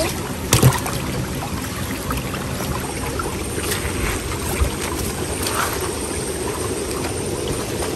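Shallow stream water running and trickling steadily through a rocky channel, with a sharp knock about half a second in.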